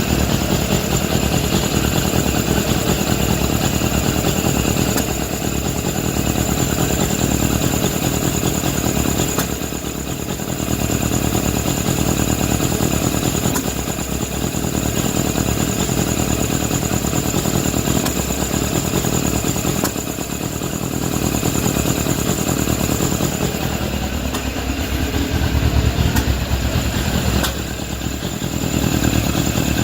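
Suzuki GSF600 Bandit's inline-four engine running with its air filter off, burping irregularly through the open carburettor intakes; the owner thinks the burps are probably tied to fuelling or carburettor problems.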